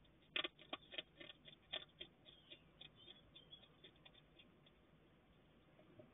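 Hedgehog crunching dry cat biscuits: a quick run of small crisp crunches and clicks that thin out after the first few seconds.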